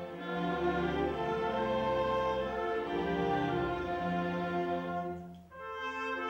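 Orchestra playing, bowed strings to the fore. About five and a half seconds in the music drops away for a moment, then comes back in.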